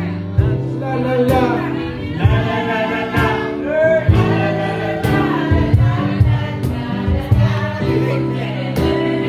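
Singing into a microphone over an instrumental backing track, with a melody line that glides in pitch above sustained chords and a steady beat about once a second.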